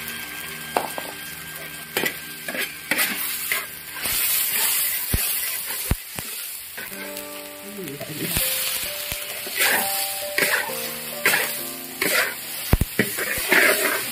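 Onion, tomato and beef chunks sizzling in a hot wok, stirred and scraped with a metal spatula that clinks against the pan now and then. The sizzle grows louder about four seconds in.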